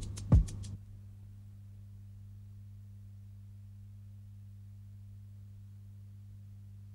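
The last beat of a drum-led theme tune, with a heavy drum hit just under half a second in, cuts off before a second; after that only a steady low hum remains.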